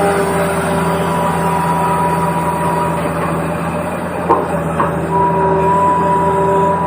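RC toy excavator working: a steady whine of its small electric motors over a low, even hum. The whine drops out briefly past the middle, where two sharp knocks sound about half a second apart.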